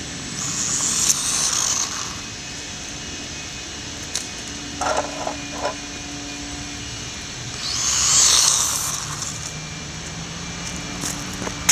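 Brushless Losi Micro Desert Truck (a small RC truck) driving past on asphalt twice, its high motor whine swelling and fading each time, about a second in and again around eight seconds in. A few short clatters come near the middle.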